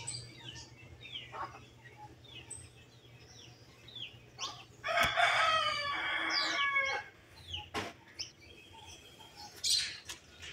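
Bird calls: repeated short falling chirps throughout, and one loud, drawn-out call of about two seconds about five seconds in.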